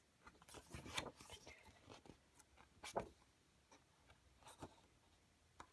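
Pages of a CD album's photo book being turned by hand: faint paper rustling and soft taps, with a sharper tap about three seconds in.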